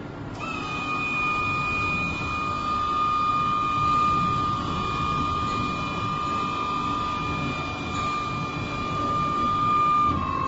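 Electric stacker's hydraulic pump motor running with a steady high whine as the stacker jacks itself up to the truck bed. It starts about half a second in and cuts out just before the end, dipping slightly in pitch as it stops.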